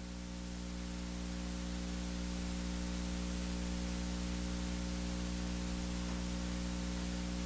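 Steady electrical mains hum with hiss from the sound system, with no speech. It grows slightly louder over the first couple of seconds, then holds steady.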